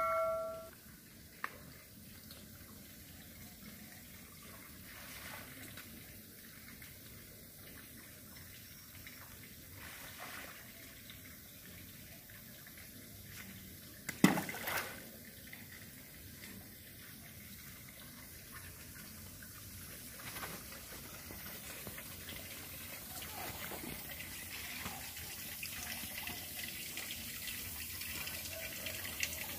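Faint trickling and lapping of swimming-pool water that grows slightly louder toward the end, with one sharp knock about halfway through. A bell-like chime fades out in the first second.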